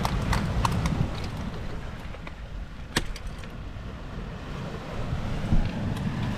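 Wind buffeting the microphone over the wash of the sea, with a few sharp clicks, the sharpest about three seconds in.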